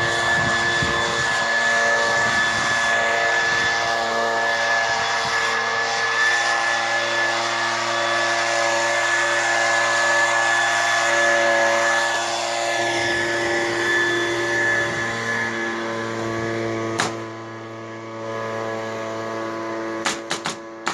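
Small quadcopter drone's propellers running with a steady whine, the pitch shifting slightly as it manoeuvres and the sound dropping a little quieter after about sixteen seconds. A few sharp clicks near the end.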